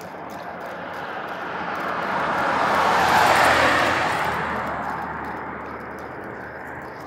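A vehicle passing by on the road: a rushing noise that swells to its loudest about three seconds in, then fades away.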